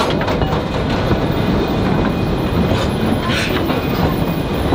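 Durango & Silverton narrow-gauge passenger coaches rolling past close by, their wheels rumbling steadily and clicking over the rail joints, with a brief squeal about three seconds in.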